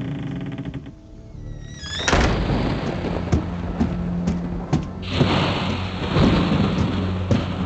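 Film score music, then about two seconds in a sudden crack of thunder gives way to steady heavy rain with further thunder cracks, over a low music drone.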